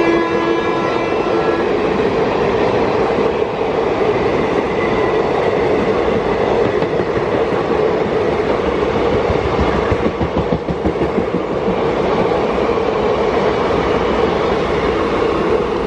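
Passenger coaches of an express train passing at speed, a steady rush and rumble with the wheels clattering over rail joints. A train horn chord trails off about a second and a half in.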